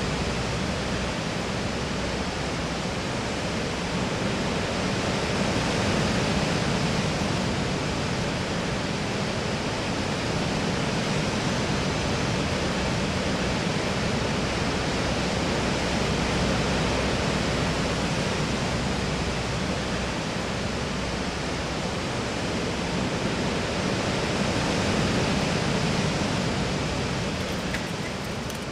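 Steady rush of a large waterfall, an even wall of water noise that swells and eases slightly, fading away near the end.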